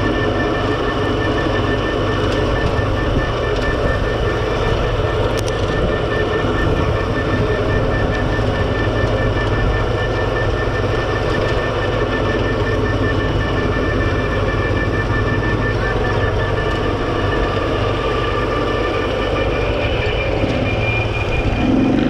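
Kawasaki quad bike's engine running steadily, a low drone with a steady high whine over it.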